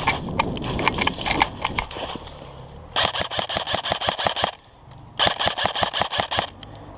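Footsteps crunching through dry leaves, then two bursts of full-auto fire from an airsoft electric rifle, each about a second and a half long, with a short pause between.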